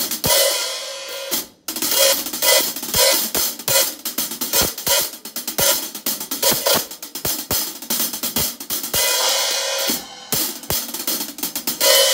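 Hi-hat cymbals played with a wooden drumstick in a quick, steady pattern. Some stretches ring on as a bright wash, and others are short, tight strokes.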